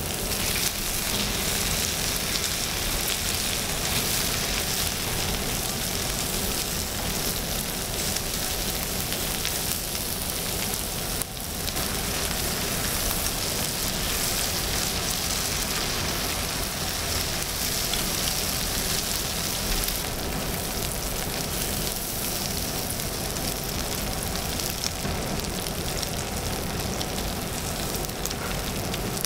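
Pork belly, aged kimchi and onions frying in their fat on a hot griddle plate, a steady sizzle.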